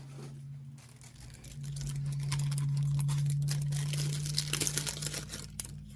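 Plastic packaging rustling and crinkling as it is handled, louder in the middle, with a few sharp clicks near the end, over a steady low hum.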